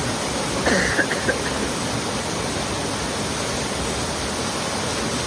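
A waterfall rushing, a steady, loud wash of falling water, with a short far-off voice-like call about a second in.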